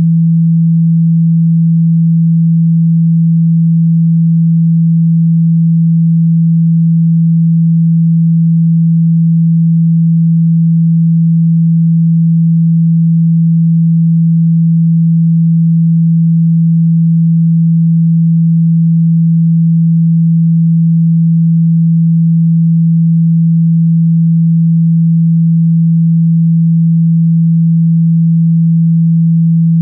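A steady, unbroken 165 Hz sine tone, a loud low hum, played to shake water out of a phone speaker.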